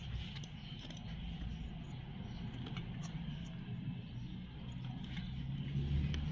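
A motor vehicle engine running steadily in the background as a low hum, growing a little louder toward the end. Faint small clicks come from metal long-nose pliers working on the grass cutter's ignition wiring.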